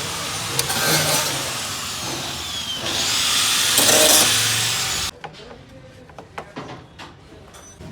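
A power tool running loud and noisy, with a whine that falls in pitch, then cutting off suddenly about five seconds in. Faint clicks and handling knocks follow.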